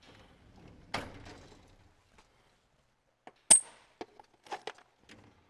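Loose metal lathe tools clinking and clattering as they are handled and sorted, with a knock about a second in and one sharp, ringing clink about three and a half seconds in, the loudest; the lathe itself is not running.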